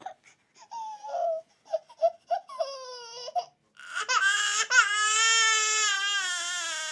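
A young child whimpering in short broken sobs, then breaking into one long wailing cry whose pitch slowly falls.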